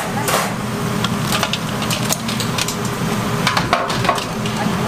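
Metal tongs clicking against a stainless-steel bowl and crisp fried chicken pieces as the chicken is picked up, many short sharp clicks at irregular intervals over a steady low hum.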